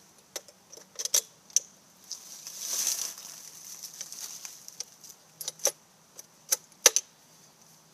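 Metal clicks and clacks of a Henry U.S. Survival .22 rifle being loaded by hand: the magazine pushed in and the action handled, with a short sliding rasp about three seconds in and the sharpest clacks near the end.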